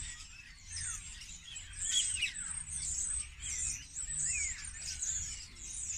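Several songbirds singing at once: a dense, overlapping chorus of chirps, trills and falling whistles.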